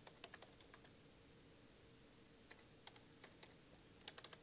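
Faint typing on a computer keyboard: scattered keystrokes, several in the first second, a few more in the middle and a quick run of them near the end.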